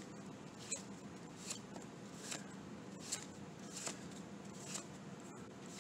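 Magic: The Gathering trading cards being flicked one by one through the hand as a booster pack is looked through. A soft card flick comes a little more often than once a second.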